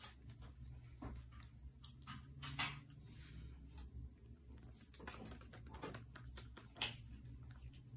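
Pen writing on journal paper: soft scratching strokes and small taps, with two sharper ticks about two and a half seconds in and near the end.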